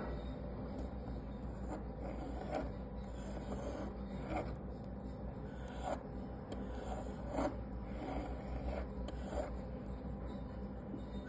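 Pencil lead of a drawing compass scratching across a wooden board as circles are drawn, in short scratchy strokes every second or two, over a steady low hum.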